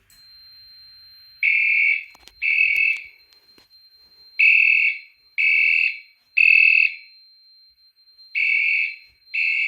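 Fire alarm horn sounding the temporal-three evacuation pattern: loud half-second blasts in threes with a pause between groups, starting about a second and a half in. A steady high-pitched tone runs underneath. The system has gone into alarm from a smoke test of a smoke/heat detector.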